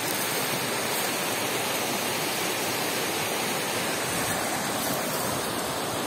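Small rocky brook rushing and splashing over stones, a steady even rush of water.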